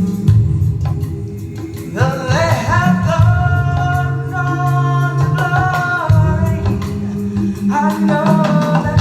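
A song played back through a DIY JBL 4430-style studio monitor with a 2360A horn: a heavy bass line with a singing voice that enters about two seconds in, holding long notes.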